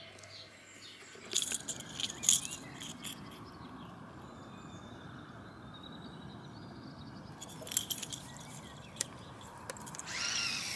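Small metal treble hooks and split rings on a wooden topwater lure clinking as it is handled, in a cluster of sharp clicks and a few more later, over steady outdoor ambience. A bird calls near the end.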